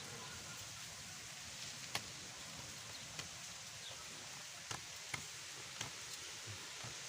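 Scattered light taps and clicks, about five over several seconds, from the bird-trap cage being handled, over a steady background hiss.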